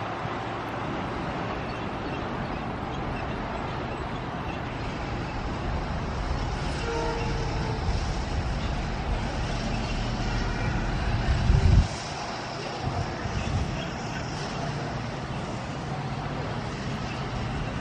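WDP4D diesel-electric locomotive, with its EMD two-stroke V16 engine, running under power as it approaches hauling an express train: a steady rumble that slowly grows louder. About twelve seconds in there is a loud, low burst that cuts off suddenly.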